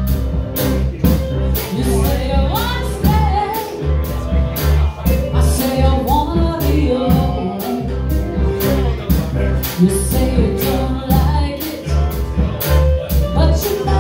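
Live band playing amplified music: electric guitars over a steady beat, with a singer's voice.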